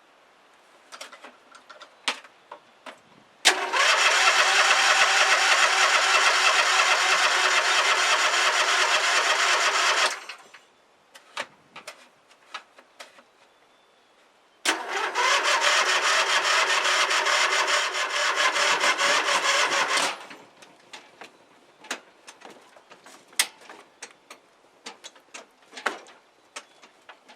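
John Deere LA135 lawn tractor's 22 hp twin-cylinder engine, two bursts of about six and five seconds each on the starter, each cut off abruptly, with faint clicks between them.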